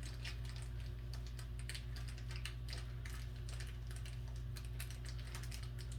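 Irregular light clicks and rattles of small desk-assembly hardware parts being picked out and handled, over a steady low hum.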